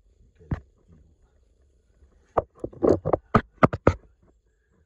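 Sharp clicks and knocks of metal tools and parts being handled at the timing end of an engine. There is one about half a second in, then a quick run of about ten between two and four seconds in.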